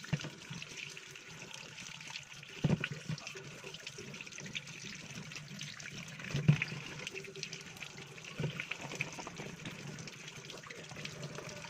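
Water running steadily from a tap, with a few knocks near the start and middle.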